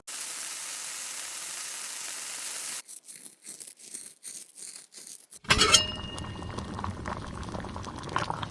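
Kitchen cooking sound effects. A steady hiss gives way to a quieter run of light strokes at about four a second. Then a sudden clatter with a brief ringing clink starts busier clinking and rattling of cookware.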